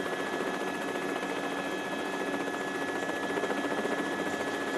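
Steady drone of a helicopter hovering, with a constant high tone running through it.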